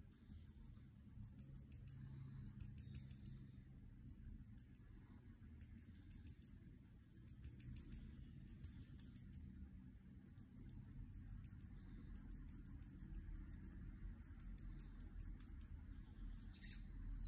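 Faint dry squeaks of a Copic marker nib drawn across paper in short strokes, coming in quick clusters every second or so and louder near the end, over a low steady hum.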